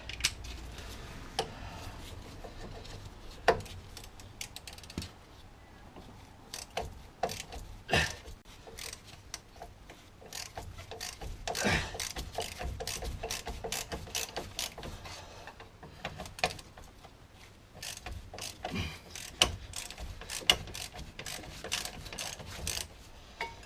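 Socket ratchet clicking in runs as it backs out the brake caliper carrier's Torx bolts, with scattered sharp metal clicks and knocks.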